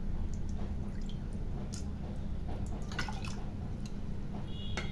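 Rice sliding from a bowl into a pot of warm water, with small splashes and scattered drips.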